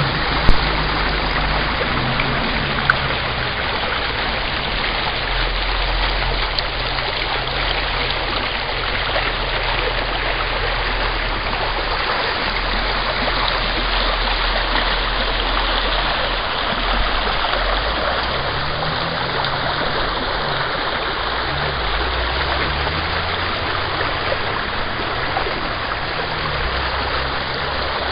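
A small rocky brook rushing and splashing over stones in a steady, unbroken rush of water. There is a single sharp knock about half a second in.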